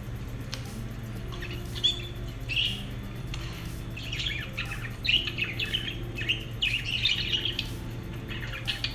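Lovebirds chirping and squeaking: short high calls, a few at first, then coming thick and fast in the second half.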